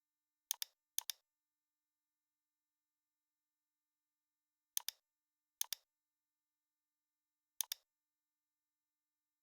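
Computer mouse clicking: five short clicks, each a quick doubled tick, spread irregularly over several seconds, with dead silence in between.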